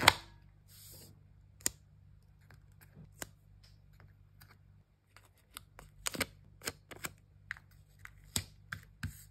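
Light, scattered clicks and taps of metal tweezers and fingertips pressing stickers onto a cardboard box lid, opening with the sharper click of a self-inking stamp being pressed down. A short soft rustle, like a sticker lifting off its backing, comes just before a second in.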